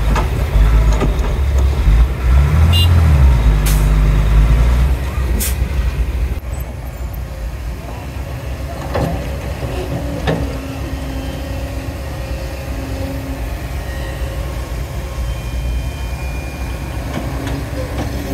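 Shantui DH17C2 bulldozer's diesel engine working hard, loud and low, for about the first five seconds, then settling to a quieter steady run. A few sharp knocks sound along the way.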